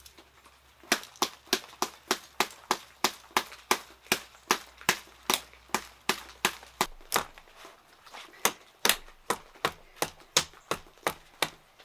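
Small stainless-steel multitool hatchet chopping at a thin tree branch: a fast series of sharp chops, about three a second, with a brief pause about eight seconds in.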